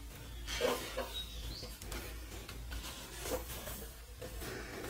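Faint handling noise: soft rustles and light clicks as the amplifier's casing is turned over in the hands. A short faint chirp sounds a little over a second in.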